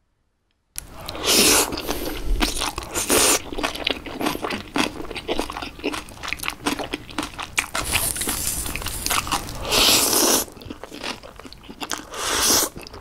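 Close-miked food sounds of wet, saucy noodles and kimchi: dense crackling and clicking with crunchy swells. They start suddenly about a second in and grow louder several times, most of all around the middle and near the end.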